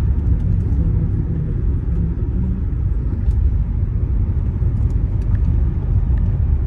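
Honda Accord V6 engine running, a steady low rumble.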